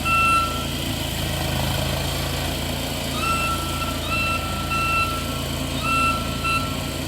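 A vehicle engine running with a low, steady rumble while a high, single-pitched beep sounds about six times at uneven intervals, some short and some nearly a second long, in the way of a truck's reversing alarm.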